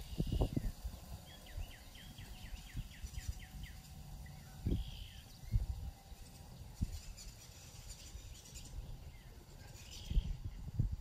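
Birds singing: a quick run of about a dozen short down-slurred notes a second or two in, and single short calls now and then, over irregular low rumbles and thumps.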